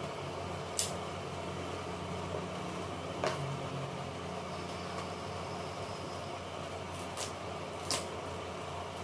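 Knife cutting into a parcel's plastic and tape wrapping: a few short crackles and clicks over a steady low background rumble.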